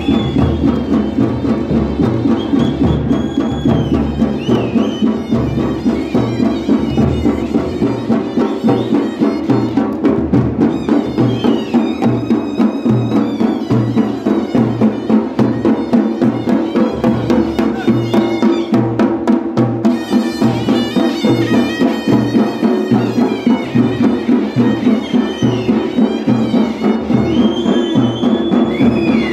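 Himachali temple band (bajantri) playing: large double-headed dhol drums beat a steady, even rhythm while a high wind instrument plays a wavering melody over them.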